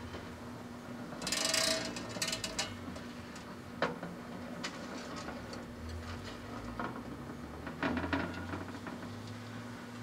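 Small Magic Chef microwave oven running with a steady hum while the Halloween light string inside arcs: a hissing, crackling burst about a second in, then sharp snaps around four seconds and again near eight seconds.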